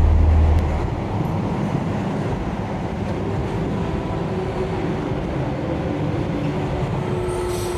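Commuter train running, heard from inside the carriage: a steady rumble and rush of wheels on rails with faint steady tones above it. A deep low boom fades out within the first second.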